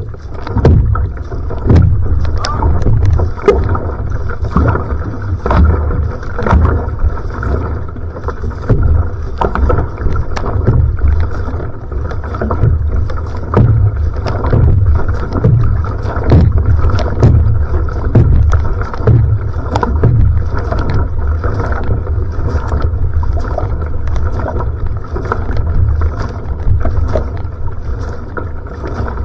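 Va'a (outrigger canoe) paddling at sprint pace: a steady rhythm of paddle strokes splashing and pulling through the water, over a continuous low rush of water along the hull.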